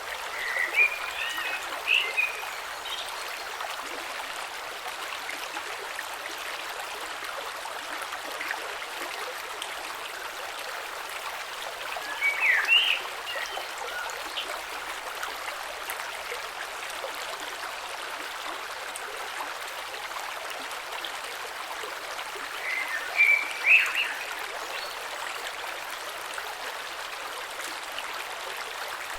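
Shallow creek flowing steadily with an even rushing and trickling. Three short louder chirping or gurgling bursts stand out, near the start, about halfway through, and about four-fifths of the way through.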